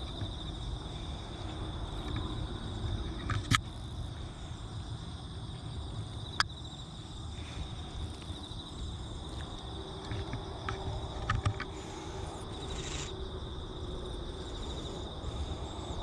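Insects shrilling in a steady high trill, over a low rumble, with a few sharp clicks close to the microphone.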